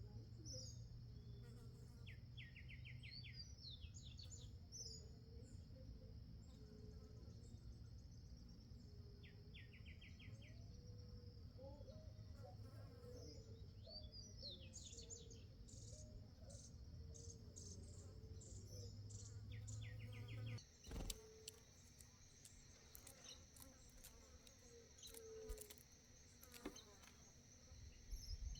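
Faint backyard bird calls: a short, rapid stuttering series repeated three times, with scattered high rising chirps in between, over a steady high insect whine.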